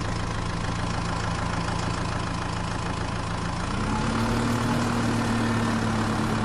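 Tractor engine idling steadily, its pitch stepping up a little just past halfway and then holding.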